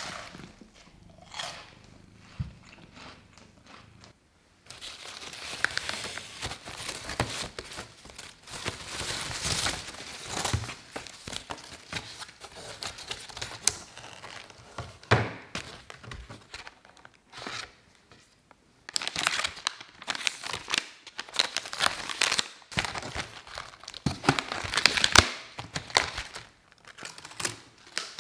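Plastic packaging crinkling and rustling as a gift basket of spice jars and packets is unpacked by hand, with many small clicks and knocks. It starts about four seconds in, after a quieter stretch.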